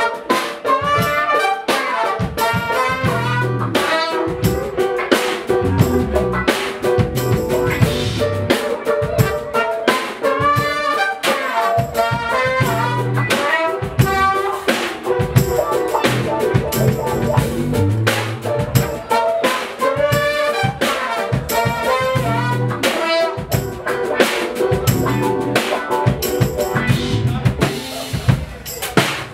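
Live jazz-fusion band playing: a drum kit groove under melodic lines from a horn section of trumpets and saxophone, with electric guitar and a held note sustained underneath.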